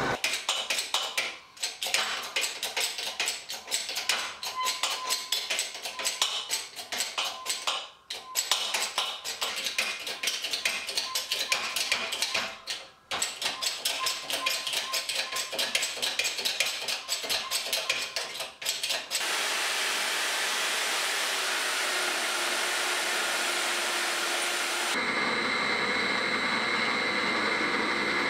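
Rapid, irregular clicking and knocking of hand-tool work on metal, then a steady hiss, and near the end a metal lathe running with a steady whine.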